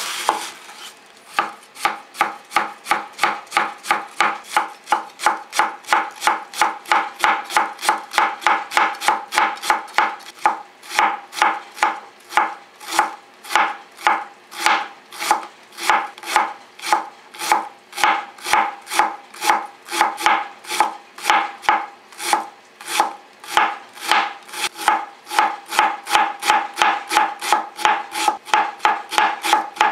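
Chef's knife finely shredding cabbage on a plastic cutting board: a steady, even rhythm of crisp knife strokes, about three a second. It opens with a single longer cut into the cabbage head before the shredding rhythm begins about a second and a half in.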